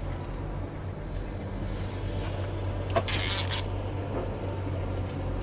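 A boat motor running steadily with a low hum, and about three seconds in a brief splash at the surface as the hooked wels catfish thrashes beside the boat.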